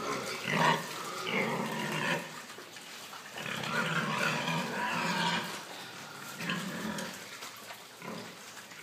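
Pigs grunting and calling as they eat dead chickens, in three bouts, the first two lasting about two seconds each and a shorter one near the end.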